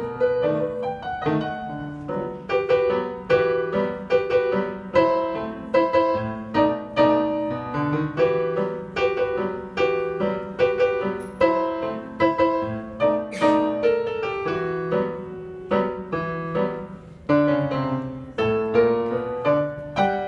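Solo piano piece played on a digital piano: a melody over lower chords, notes struck at a steady, moderate pace.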